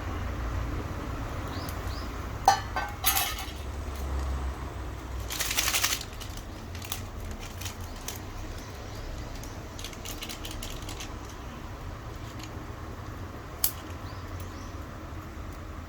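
Scattered small clicks and crackles over a steady low rumble, with a short clatter about three seconds in and a louder rushing burst lasting about a second around five seconds in. A few short, falling high chirps, like small birds, come near the end.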